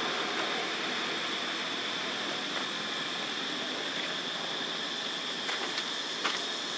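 Steady outdoor background hiss with a constant high-pitched whine, broken by a few faint short clicks in the second half.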